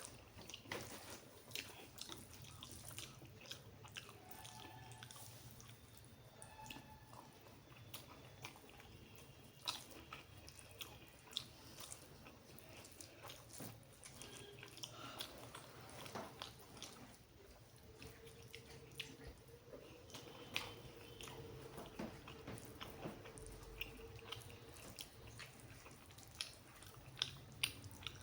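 Faint, close-up chewing and biting of rice with egg curry, with irregular sharp mouth clicks.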